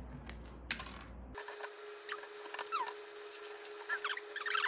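Plastic keycaps clicking as an African grey parrot pries them off a computer keyboard with its beak. After about a second and a half the audio is fast-forwarded, turning the sounds into rapid, high squeaky chirps and clicks over a steady hum.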